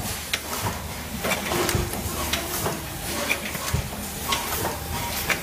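Automatic bottle filling and capping line running: small bottles clink and knock against each other and the guides on the rotary feed table in an irregular clatter, over a steady low hum from the machinery.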